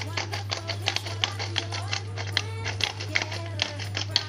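Hand-twisted pepper mill grinding pepper, a rapid, irregular run of small clicks and crunches, over a steady low hum.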